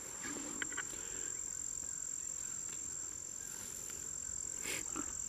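Insects trilling in one steady, unbroken high note, with a few faint clicks about half a second in and a brief louder knock near the end.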